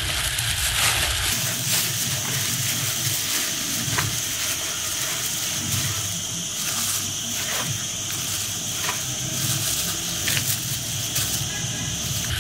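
Thin plastic bags crinkling and rustling as a gloved hand squeezes and crumbles powdered rice-wine yeast inside them, with a continuous crackly hiss and a steady high tone through most of it.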